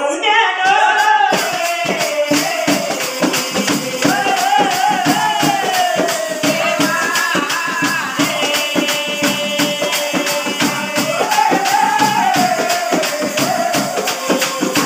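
Telugu folk song: one voice sings a wavering melody over a steady, quick beat of jingling percussion like tambourine or rattles.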